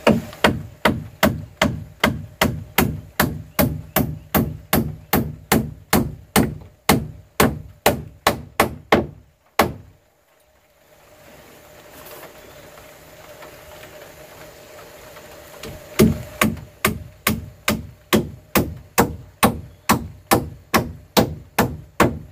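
Claw hammer striking wooden boards in steady strokes, about three a second. The hammering stops for about six seconds just before the middle, then starts again at the same pace.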